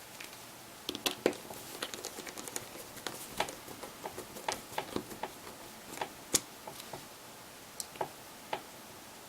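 Irregular light clicks and taps from a small screwdriver and plastic phone parts being handled as the rear housing screws of a Huawei Ascend 2 M865 smartphone are driven back in.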